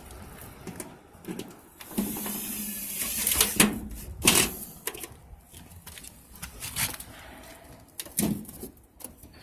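Irregular knocks and clicks of hand work on a metal gutter, with a stretch of scraping about two seconds in and sharper knocks a little later and again near the end.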